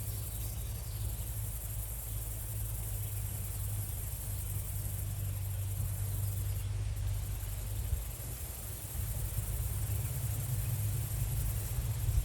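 Crickets or similar field insects giving a steady, high, even trill, over a low steady rumble.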